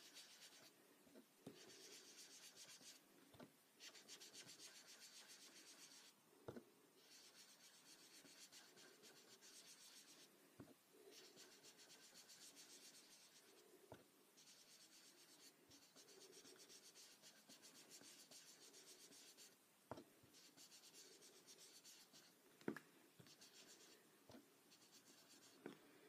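Foam finger dauber rubbing ink over a small card: a faint, scratchy swishing in stretches of two or three seconds with short pauses, and a few light taps.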